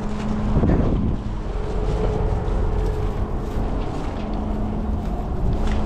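Strong wind buffeting the microphone, a loud rumble with a steady low hum underneath.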